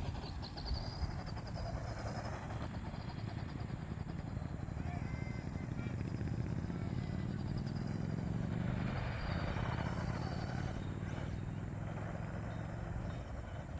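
A motor running steadily with a low, even hum, its note shifting about nine seconds in. It has an odd noise that the owner calls funny, though it runs well.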